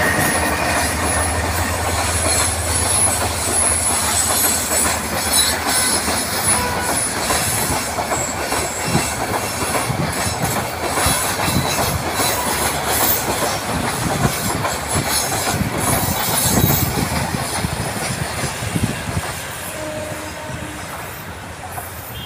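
A diesel-hauled passenger train passing close by. The locomotive's low engine drone fades within the first few seconds, then the coaches roll past with wheels clicking over the rail joints and a thin high wheel squeal. The sound dies away near the end as the last coaches draw off.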